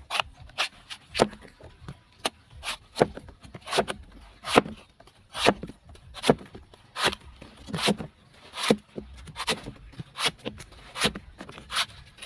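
Long knife chopping the husk off a young green coconut against a wooden board: a steady run of sharp chops, about two a second.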